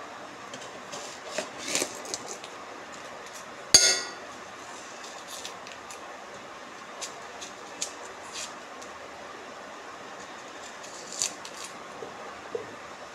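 Metal kitchenware clinking and tapping: a utensil knocks against a steel vessel and its lid in scattered small clicks, with one loud ringing clang just under four seconds in.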